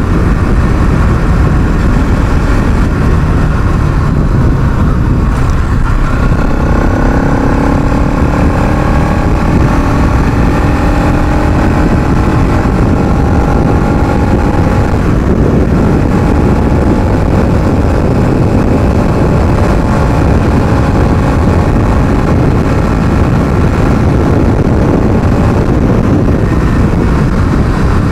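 Bajaj Pulsar NS200's single-cylinder engine and exhaust under hard riding, with its pitch climbing steadily through a gear from about six seconds in. Heavy wind rush on the microphone runs underneath.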